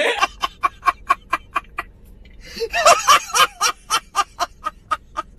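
A man laughing hard in rapid, even pulses, about seven a second, with a louder, longer burst near the middle.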